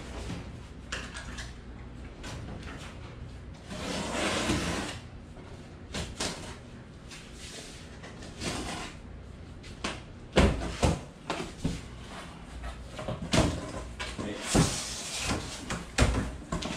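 A large cardboard box being opened by hand. There are a few long tearing, scraping rasps along its top, then the flaps are pulled open with rustling and a string of sharp knocks and thumps, most of them in the second half.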